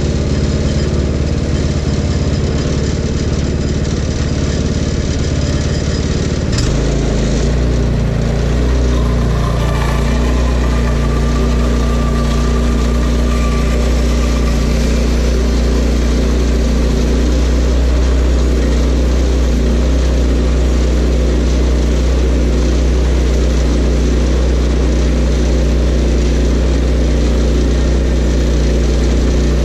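Portable bandsaw sawmill's gas engine running steadily. About six and a half seconds in there is a click, and the engine settles into a deeper, heavier drone.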